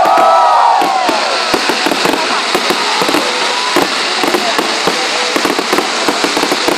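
Fireworks display going off: a dense, continuous run of irregular pops and cracks over a steady crackle, with a few rising and falling whistling tones in the first second or so.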